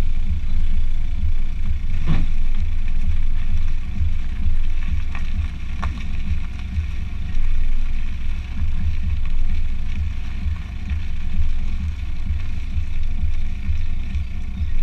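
Black Audi A4 B6 rolling slowly, heard from a camera fixed on the outside of the front wing beside the wheel: a steady deep rumble of tyre, engine and wind noise on the microphone. Three sharp ticks stand out, one about two seconds in and two more about five to six seconds in.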